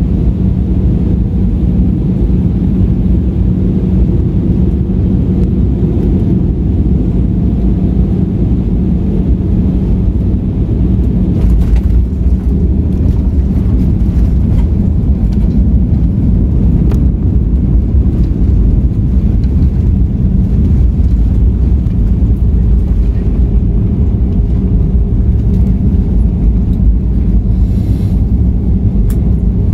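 Cabin noise in an Airbus A320 during landing: a steady low roar of the engines and airflow with a constant hum. About twelve seconds in comes a jolt as the wheels touch down, and then the heavier rumble of the landing rollout on the runway.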